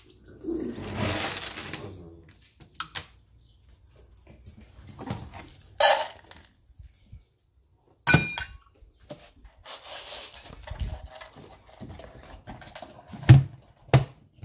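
Handling sounds of dog feeding: dry kibble rattling in a stainless steel bowl and the metal bowl knocking and ringing against hard surfaces. Near the end come two loud thumps as the plastic lid of a Rubbermaid pet-food bin is shut.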